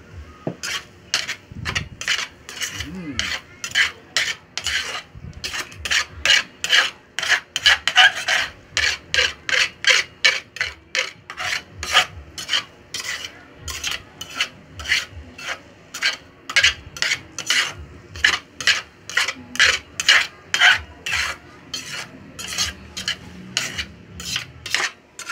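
Metal spatula scraping and stirring corned beef and egg in a frying pan: rasping strokes, about two a second.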